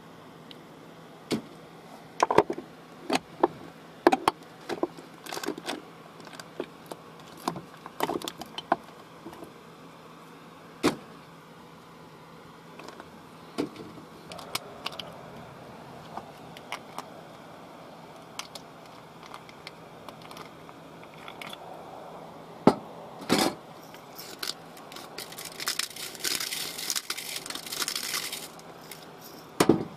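Clicks and clatter of spice jars being picked up, opened and set down on a plastic plate and a steel benchtop. Near the end, a longer scratchy rattle as seasoning is shaken out of a jar onto the plate.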